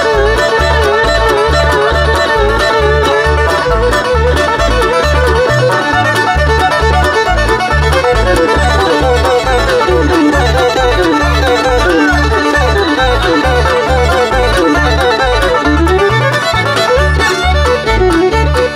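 Live bluegrass band playing a fast fiddle tune. The fiddle carries a sliding melody over banjo and guitar, with a steady bass beat underneath.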